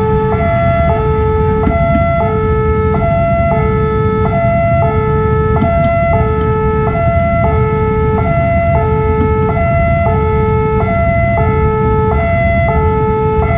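Railway level-crossing warning alarm sounding continuously, an electronic two-tone signal alternating between a lower and a higher pitch a little more than once a second, warning that a train is approaching.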